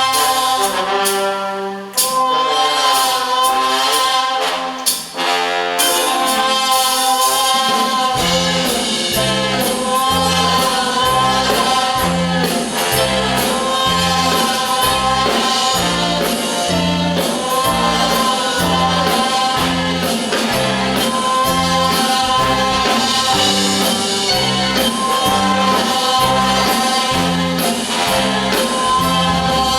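Brass band playing a jazz blues: held horn chords with two short breaks at first, then a steady low beat comes in about eight seconds in and carries on under the horns.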